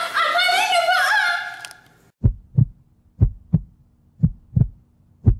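Heartbeat sound effect: four slow lub-dub double thumps, about one a second, starting about two seconds in after a wavering pitched sound fades out.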